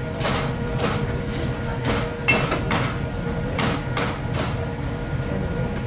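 A run of about eight short knocks and clatters, the loudest a little over two seconds in, over a steady room hum.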